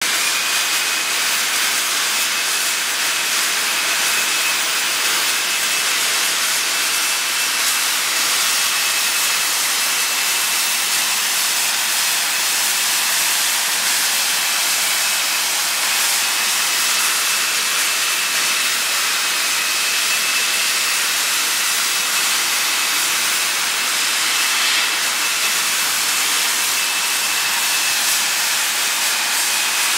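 Engines of a three-pod VTOL fixed-wing jet model running as it hovers: a steady, loud hiss with a thin high whistle held over it.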